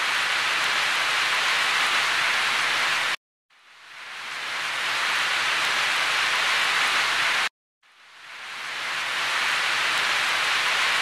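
A steady, even hiss in three stretches. Each stretch fades in over about a second and cuts off sharply, with brief gaps of silence after about three seconds and again after about seven and a half seconds.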